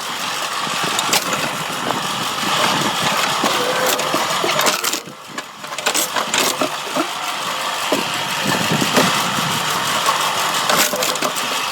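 A machine's engine running steadily, with scattered knocks and a brief drop in level about five seconds in.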